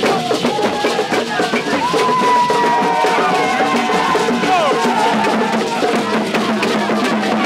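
Drum and percussion music with a dense beat, with voices over it.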